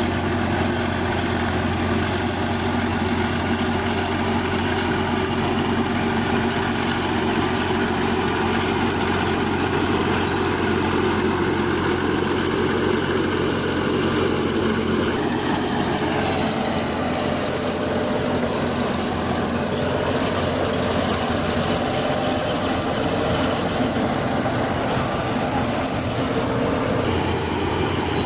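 Bulldozer running and working, a steady heavy machine sound whose engine note shifts about halfway through.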